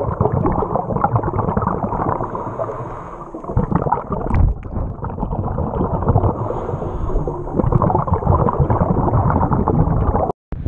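Underwater camera audio: a dense, muffled rushing and crackling of water around the housing, with bubbling, cutting out briefly near the end.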